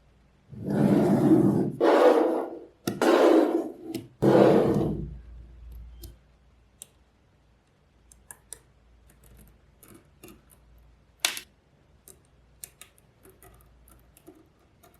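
Small magnetic balls handled in a clump: four rattling scrapes in the first five seconds, then scattered sharp clicks as single balls snap together.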